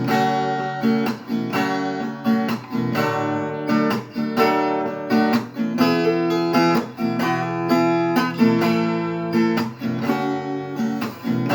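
Acoustic guitar strummed in a steady rhythm through an Em–C–D chord progression, played without singing as an interlude between sung lines.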